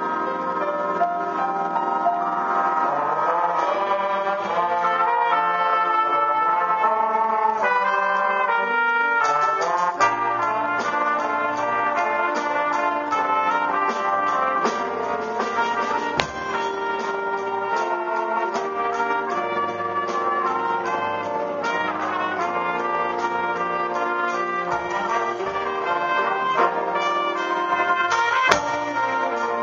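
School jazz big band playing a ballad, a solo trumpet out front over saxophones, trombones, piano and drums. The band fills out with a fuller low end and regular drum hits about ten seconds in.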